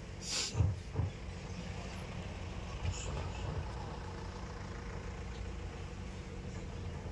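Steady low droning hum, with a short hiss and two soft thumps in the first second.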